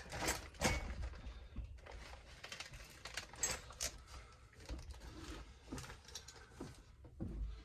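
Small chainsaw parts being handled and sorted: irregular light clicks and knocks of small pieces against each other, a few sharper ones in the first second and about halfway through.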